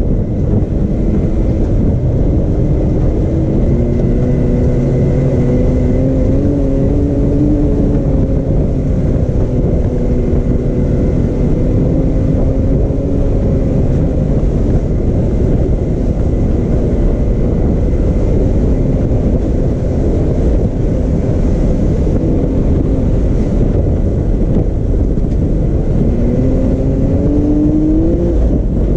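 Can-Am Maverick X3 Turbo RR's turbocharged three-cylinder engine running under way on a dirt trail, heard from on board over heavy low rumble. Its pitch rises and falls gently with the throttle and climbs clearly near the end.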